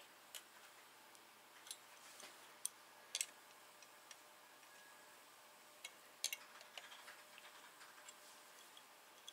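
Faint, irregular metallic clicks and taps, some in quick pairs, as a small wrench works the mounting bolt of a valve spring compressor bracket on an aluminium cylinder head.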